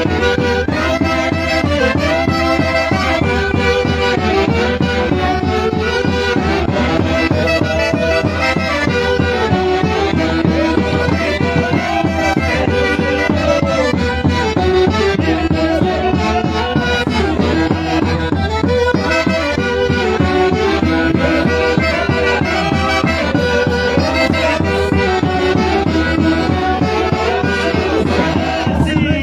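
Peruvian santiago music played by an orchestra: wind instruments carrying a lively, moving melody over a steady driving beat, with no singing.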